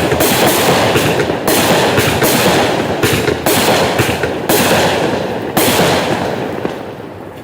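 Black Cat American Freedom Train 180-shot compound finale cake firing: a dense, continuous barrage of shots and crackle, with heavier volleys about every second, dying away over the last couple of seconds.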